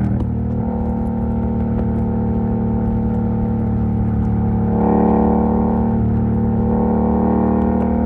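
Yamaha MT-07's parallel-twin engine running at a steady speed through an exhaust with the dB killer removed, its tone shifting slightly about five seconds in.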